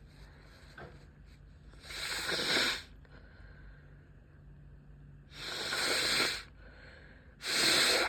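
Three forceful, hissing breaths through a person's nose, each lasting about a second, during a sneezing fit that will not stop.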